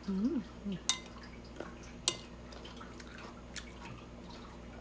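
A brief hummed "mm" while eating, then small wet mouth sounds of chewing and smacking. A metal spoon clinks sharply against a ceramic bowl twice, about one and two seconds in.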